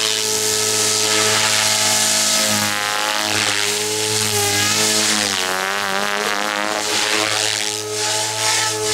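SAB Goblin 420 electric RC helicopter flying low and fast with its Xnova brushless motor: a steady buzz from the rotor blades and motor, its pitch wavering midway as the helicopter swoops and turns. A whooshing blade sound swells and fades a few times as it passes.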